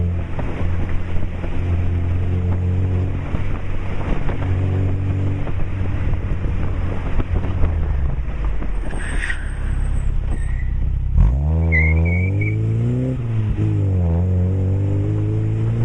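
Lada 2107's four-cylinder engine through a 50 mm sport exhaust with a stainless tip, running with a steady low drone. About eleven seconds in, the engine note climbs and falls twice.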